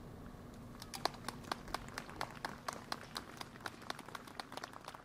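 A small audience clapping, beginning about a second in as scattered, irregular hand claps over a faint low rumble.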